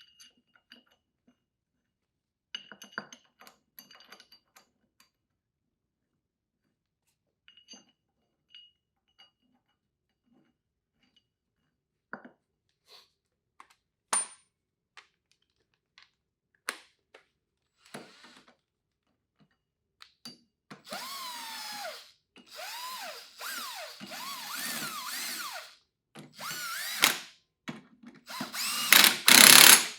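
Scattered metal clinks of tools and the hub remover plate being fitted. Then, from about two-thirds of the way in, a power tool runs in several bursts, its pitch sagging and rising under load, as the puller is driven to draw the wheel hub off the axle shaft.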